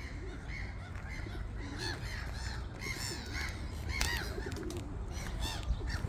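Many birds calling at once: short chirps repeating and overlapping, with a louder one about four seconds in.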